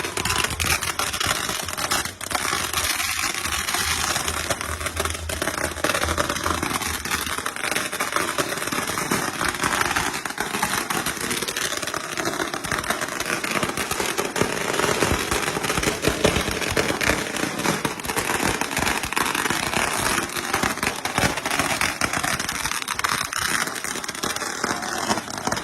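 A long string of firecrackers going off: a rapid, unbroken crackle of small bangs at a steady level.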